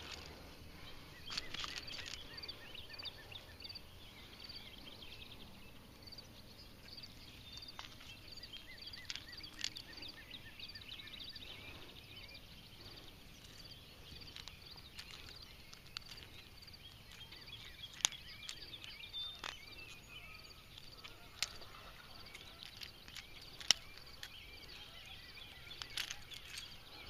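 Quiet outdoor ambience with faint high-pitched chirping repeating throughout, broken by a few sharp clicks from metal fishing forceps worked on a lure's hook, the loudest about two-thirds of the way in.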